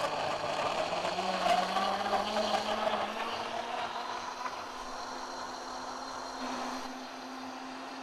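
Davoli Power Blender's high-power motor running on its hot-soup program, churning chunks of pumpkin, carrot, onion and ginger in water. The motor hum rises slowly in pitch, and the churning grows smoother and a little quieter after about three seconds.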